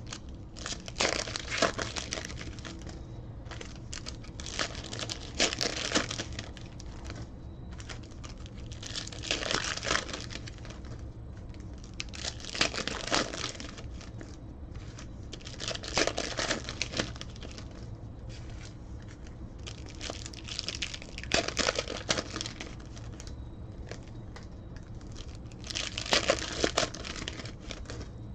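Foil wrappers of Panini Elite Extra Edition baseball card packs being torn open and crinkled, in bursts every three to five seconds.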